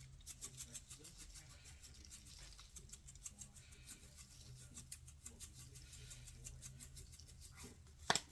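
Seasoning shaker being shaken, a faint, rapid rattle of granules with a slightly louder click near the end.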